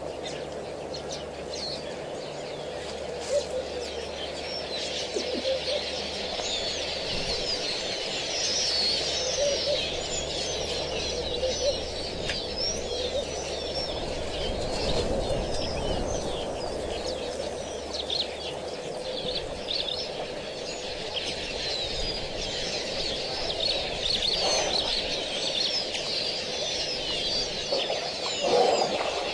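A dense chorus of many small birds chirping and twittering, with lower calls underneath and a louder, lower call near the end. A faint low hum stops about two-thirds of the way through.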